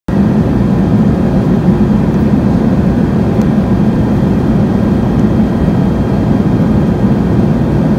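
Steady, low drone of cabin noise aboard an Airbus A380 in flight, from its engines and the air rushing past the fuselage. It cuts in suddenly at the start.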